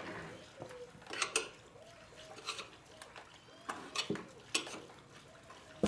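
A string of sharp metal clinks and scrapes, about seven in all and spaced irregularly, as steel tire irons work against a motorcycle wheel rim while the tire is being mounted.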